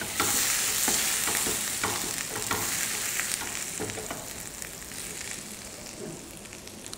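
Gram flour and ground spices frying in hot oil in a stainless steel pan, sizzling as a steel spoon stirs and scrapes against the pan, with scattered clicks of spoon on metal. The sizzle fades gradually as the besan roasts.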